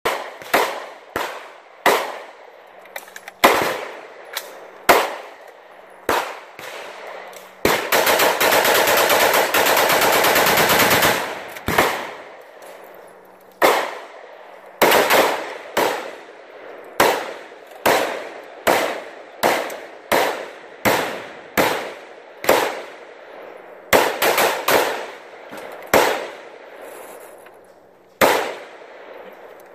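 Daniel Defense M4 V7 AR-15 rifle with a Franklin Armory binary trigger firing, each shot with a short echo. The binary trigger fires once on the pull and again on the release, so shots come singly and in quick pairs. About a third of the way in there is a rapid string of fire lasting about three and a half seconds.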